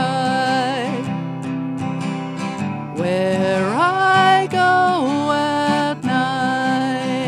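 Acoustic guitar strummed with a woman's wordless singing. The melody slides up in pitch midway and back down about a second later.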